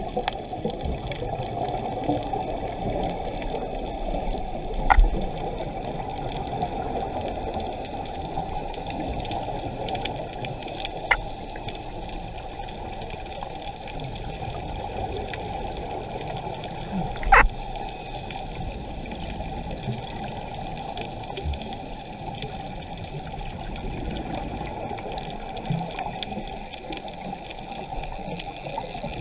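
Muffled underwater rushing, as picked up by a camera in a waterproof housing on a scuba dive, with three sharp clicks or knocks, the loudest about seventeen seconds in.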